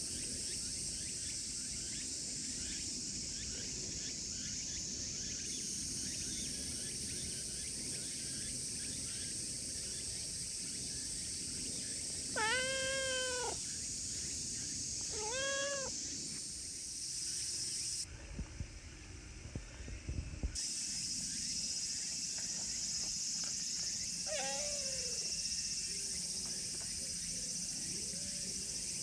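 A silver tabby cat meowing several times: a long meow about halfway through, a shorter one soon after, a falling meow later on, and another beginning at the very end. A steady high hiss runs underneath, with a brief low rumble between the meows.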